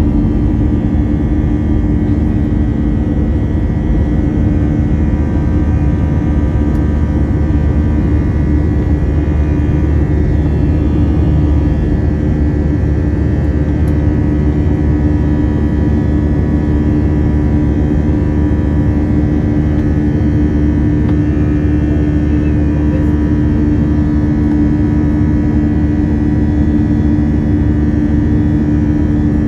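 Airbus A321's CFM56 turbofan engines at climb thrust just after takeoff, heard from inside the cabin over the wing. It is a loud, steady drone with a strong held low hum and a fainter high whine.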